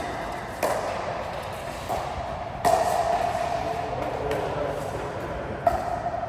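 Three sharp knocks, two and three seconds apart, over a steady hum.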